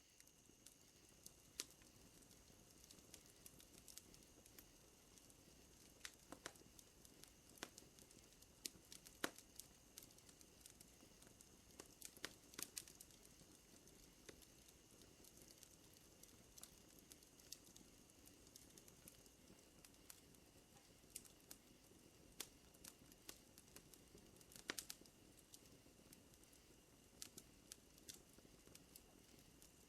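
Wood fire crackling: irregular sharp pops and snaps over a low steady hiss, a few louder pops among them. A steady high chirring of night insects such as crickets runs underneath, part of it fading about two-thirds of the way through.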